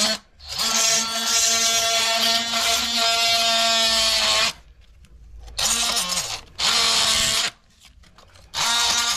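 Electric drill motor running in bursts: one run of about four seconds, then three short runs of about a second each with pauses between, the pitch sagging briefly in the second short run.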